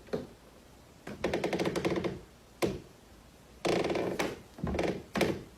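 Creaking wooden floorboard on a Foley creak panel, the classic haunted-house floor creak. There is a long creak about a second in, a short sharp one mid-way, then three creaks in quick succession near the end.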